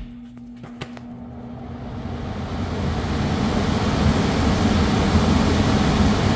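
Furnace blower with a newly replaced motor and freshly cleaned blower wheel starting up: a low hum, then the rush of air building over about four seconds as the wheel comes up to speed and settles into a steady run.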